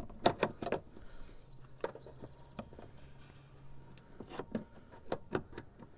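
A plastic trim tool clicking and knocking against the plastic fasteners under a Porsche 981 Boxster's side sill panel as they are twisted a quarter turn. The sound is a series of irregular light clicks.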